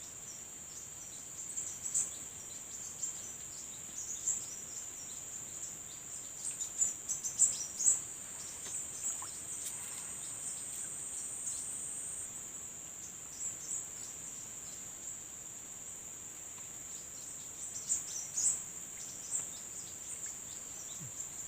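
Insects trilling steadily at a high pitch, with short bird chirps now and then.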